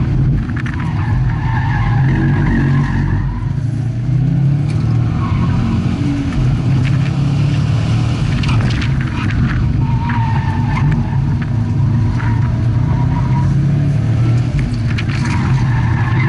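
2011 Subaru WRX STI's turbocharged 2.5-litre flat-four engine running hard, heard from inside the cabin, with the tyres squealing on and off through the turns.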